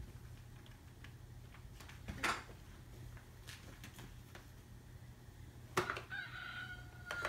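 Baby's electronic activity walker set off by pressing its buttons: two light knocks, then near the end a short toy sound effect like a rooster crowing, one held electronic tone about a second long.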